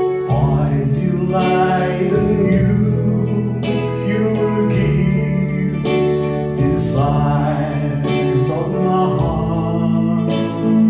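Yamaha arranger keyboard playing a slow gospel worship ballad: sustained organ-like chords over a bass line that changes every few seconds, with a melody played on top.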